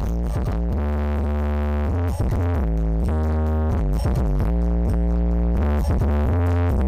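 Electronic dance music with a synthesizer melody over a very heavy, deep bass line, played loud through the Blizzard Audio sound system.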